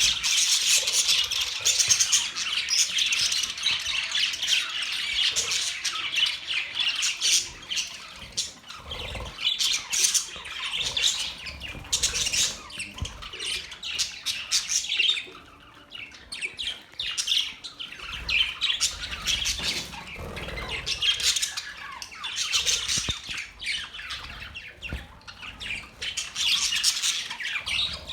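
Several small pet birds chirping and squawking, many rapid high-pitched calls overlapping in a continuous chatter, with a brief lull about halfway through.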